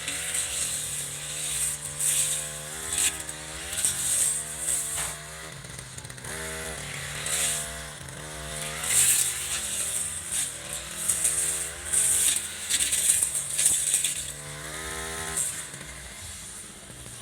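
Echo RM435 brush cutter's small two-stroke engine being revved up and down over and over, the throttle blipped from low speed to high and back.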